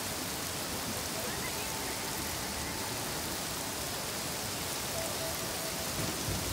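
Steady monsoon rain falling, an even hiss with no let-up, with a brief low thump near the end.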